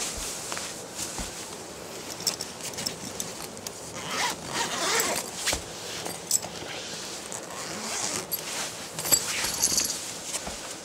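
Zipper on a soft black cat carrier bag being pulled open in several rasping pulls, with the bag's fabric rustling.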